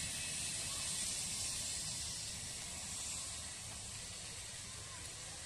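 Twin rear-mounted turbofan engines of a business jet running at taxi power, heard as a steady high hiss over a low rumble. The hiss slowly fades as the jet turns and moves away.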